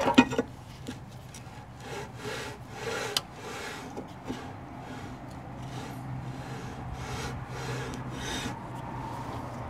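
New drum-in-hat brake rotor on a Mercedes ML350's rear hub being turned by hand, its inner drum scraping and rubbing against the parking brake shoes in a series of uneven strokes. The shoes have just been adjusted outward, so they drag on the drum.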